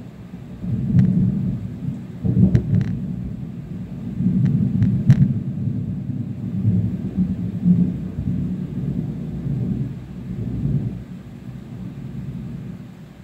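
Thunder rolling for about ten seconds, with several sharp cracks in the first five seconds before the rumble dies away.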